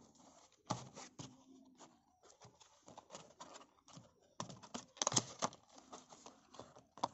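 Thin cardboard medicine carton being handled and opened by hand: a run of irregular crackles and clicks of the paperboard flaps, loudest about five seconds in.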